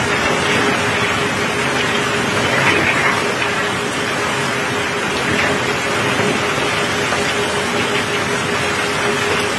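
Steady rushing noise of rain and water on a wet steel barge deck, over a constant machine hum.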